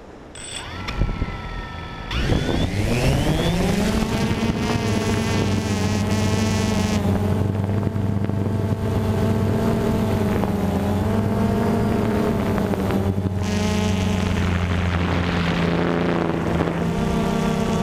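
DJI Phantom 2 quadcopter's motors and propellers spinning up with a rising whine about two seconds in as it lifts off. It then settles into a steady propeller buzz, its pitch wavering slightly as it climbs and flies.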